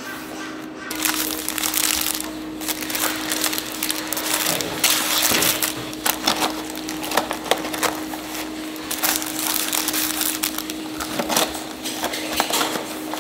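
Cardboard rice-cake boxes and plastic-wrapped rice cakes being handled and packed: rustling, crinkling and sharp taps of paper and cardboard, many short strokes in a row, over a steady low hum.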